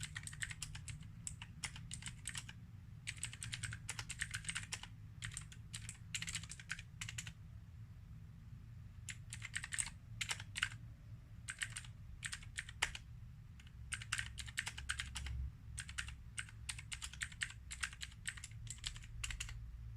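Typing on an AJAZZ AK33 mechanical keyboard with loud clicky Zorro Blue switches, clones of Cherry MX Blues: quick runs of key clicks broken by short pauses, over a low steady hum.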